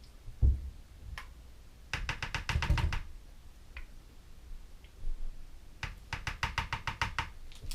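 A utensil tapped quickly and repeatedly against the blender cup as sticky red curry paste is knocked off into it: a low thump about half a second in, then two runs of rapid light clicks, about ten a second.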